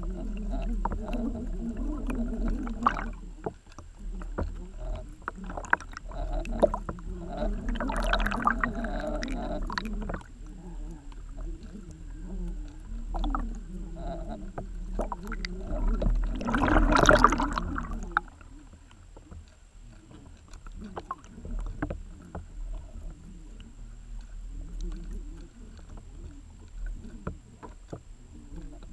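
Underwater sound: a low rumble of moving water with scattered knocks and clicks, swelling into louder rushing surges about eight and seventeen seconds in, then quieter.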